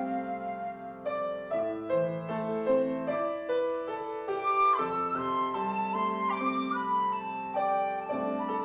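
Flute and piano playing a slow, legato melody.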